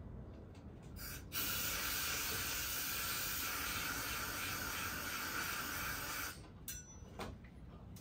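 Compressed-air blow gun fed by a compressor, blasting dust out of a drilled hole in a concrete foundation to prepare it for epoxy and a rebar dowel. A short puff about a second in, then a steady hiss of about five seconds that cuts off suddenly, followed by a couple of short puffs.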